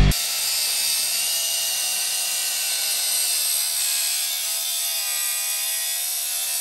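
Angle grinder with a cut-off disc cutting into a motorcycle's steel rear axle nut. It is a steady high whine whose pitch sags slightly for a moment in the later part as the disc bites.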